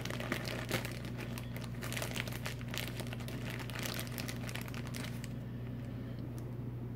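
Crinkling and light clicks of plastic packaging being handled, busy for about five seconds and then dying away, over a steady low hum.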